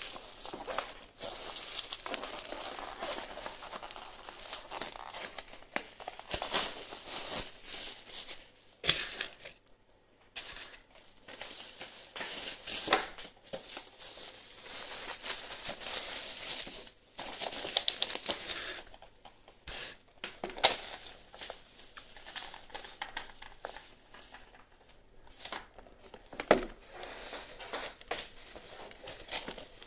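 Plastic bubble-wrap packaging being crinkled and torn open by hand, in irregular bursts with short pauses and a few sharp clicks.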